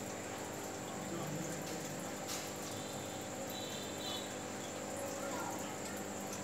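Steady hum and hiss of an aquarium's running aeration, with air stones bubbling in the tank. A brief high chirp comes about three and a half seconds in.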